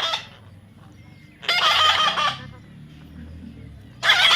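Loud bird calls, three in about four seconds, each lasting about a second.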